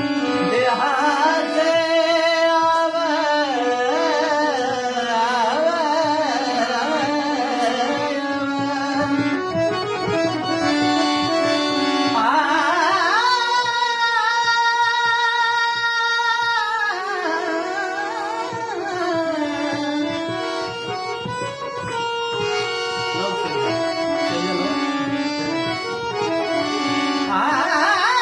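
Marathi Warkari kirtan singing: a man sings a long, ornamented melodic line in a high voice, over harmonium and hand-drum accompaniment. He holds one high note for several seconds about midway through.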